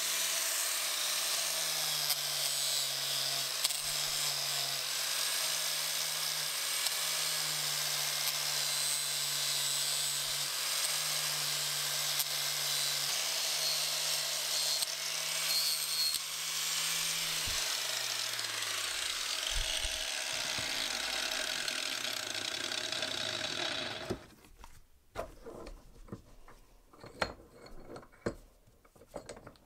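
Angle grinder with a scouring pad disc rough-polishing the steel head of a masonry hammer, running steadily with the disc against the metal. Near the end the motor's hum falls away and the sound cuts off. A few light clicks and knocks follow as the head is handled.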